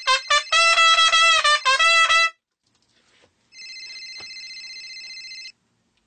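Trumpet playing a few short notes and then a held one, breaking off about two seconds in. After a second of quiet, a mobile phone's electronic ringtone, a fast warbling trill, rings for about two seconds.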